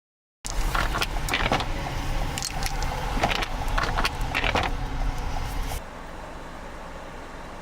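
Vehicle noise with a run of sharp clicks and knocks for about five seconds, then it drops abruptly to a quieter steady hum.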